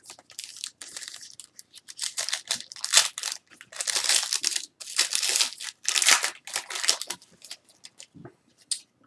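Trading-card pack wrapper torn open and crinkled, with cards slid and shuffled out: a run of short, scratchy rustles and tears, loudest in the middle.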